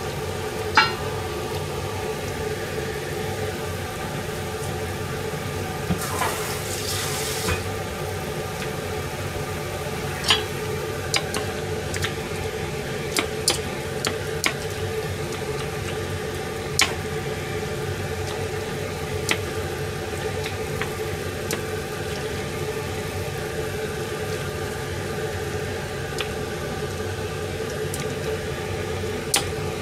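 A metal ladle clinking and scraping now and then against a frying pan while stirring simmering nishime with chicken and beef, over a steady hum. A short hiss lasting about a second and a half comes about six seconds in.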